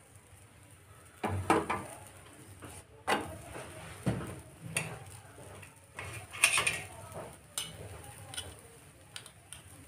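Metal utensils knocking and clinking against a tawa and dishes as a paratha is turned over: a series of sharp clatters, the loudest about a second and a half in and again past the middle.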